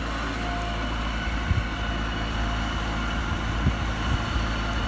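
Turbocharged 90 hp engine of a Talay Thong TR9000 rotary-tiller tractor running steadily, with a few short knocks, about a second and a half in and again near the end.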